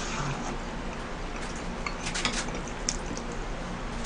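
Quiet eating: a few short, faint clicks of wooden chopsticks against plates over a steady low hum.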